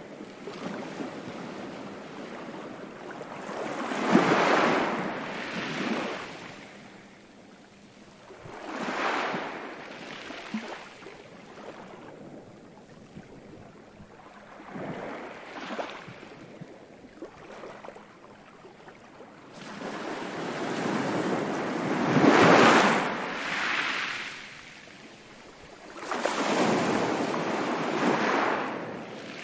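Ocean waves washing in and drawing back, one swell every four to six seconds, with the loudest about two-thirds of the way in.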